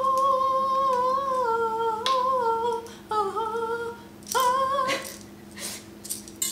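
A woman singing a wordless tune in long held notes, four phrases of a second or two each, fading out about five seconds in.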